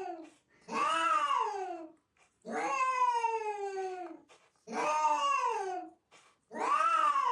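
A cat meowing over and over in long, drawn-out calls, about one every two seconds, each rising and then falling in pitch.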